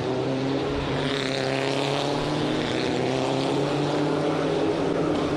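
Peugeot RCZ touring car engines at high revs, played through a television's speaker. The engine note is steady and climbs slowly in pitch as the cars accelerate.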